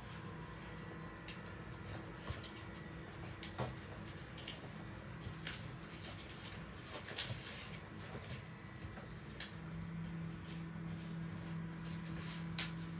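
Paper being handled: scattered rustles and light clicks as a rolled paper tube is worked by hand, over a steady low hum that gets louder about two-thirds of the way in.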